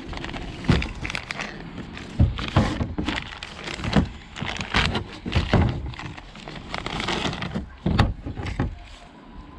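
Hand-work on ignition parts: a string of irregular clicks, knocks and rattles as a coil pack and spark plug wires are handled and fitted. It goes quieter near the end.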